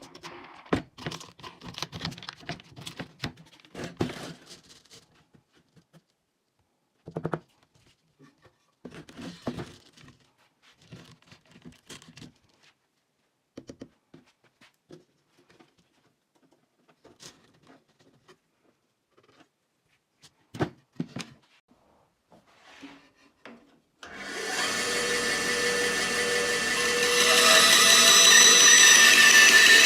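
Scattered handling clicks, knocks and rustles, then, about four-fifths of the way in, the electric motor of a homemade grinding machine switches on and runs steadily with a whine, growing louder near the end.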